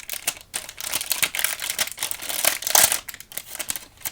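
Crinkly plastic packaging being handled, with irregular crackles and the loudest burst a little under three seconds in.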